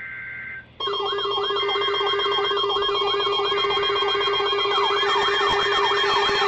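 Emergency alert on weather radio: a short electronic data burst, then an alert alarm starts abruptly under a second of data. The alarm is a warbling tone sweeping up and down about twice a second over a steady tone. A second warble joins about five seconds in.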